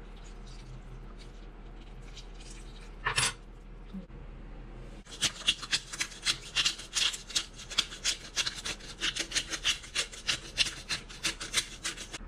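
Hand pepper mill grinding black pepper in quick rasping strokes, about four a second, starting about five seconds in. A single short scrape comes about three seconds in.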